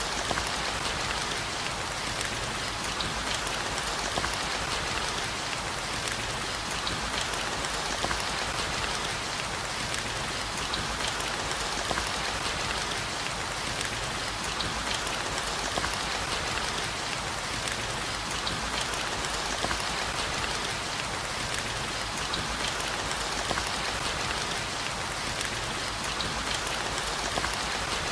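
Steady rain falling: an even, unbroken hiss with many small, sharp raindrop ticks scattered through it.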